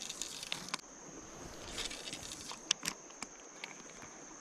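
Insects keep up a steady, high drone. Over it come scattered rustles and several sharp clicks, from fishing tackle and a spinning reel being handled during a cast and retrieve.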